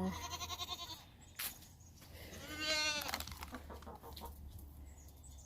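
Nigerian dwarf goats bleating twice, a wavering cry at the start and a louder one about halfway through, calling for more tomatoes. A single sharp click comes about a second and a half in.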